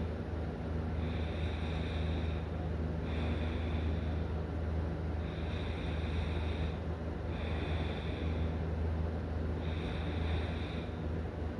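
A sleeping person snoring, in a slow, even rhythm of about five breaths, each lasting a second or so, over a constant low hum.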